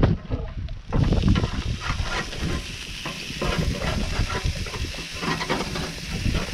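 Hamburger patties sizzling on a portable propane grill as they are flipped with a metal spatula, with clicks and scrapes of the spatula on the grate. The sizzle swells about a second in.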